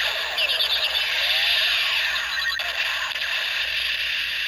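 Kamen Rider Ex-Aid DX Dangerous Zombie Gashat toy playing its electronic finishing-move sound effect through its small built-in speaker: a continuous harsh, noisy effect with sweeping tones.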